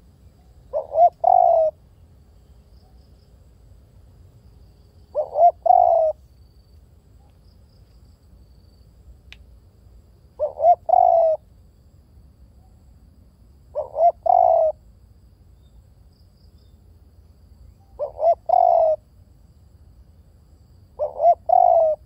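Spotted dove cooing: six calls a few seconds apart, each two short coos followed by a longer one.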